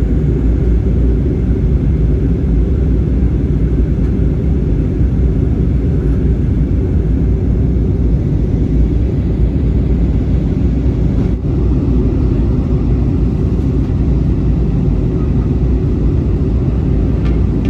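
Steady low rumble of an Airbus A320neo airliner in flight, heard from inside the passenger cabin: engine and airflow noise.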